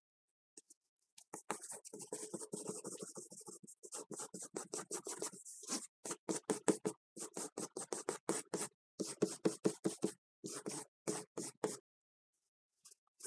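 Pencil scratching on drawing paper in quick hatching strokes, several a second, in runs broken by short pauses; it stops about a second before the end.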